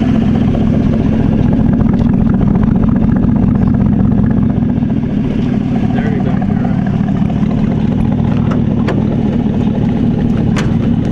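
An engine idling steadily, a loud low rumble, with a few sharp clicks near the end.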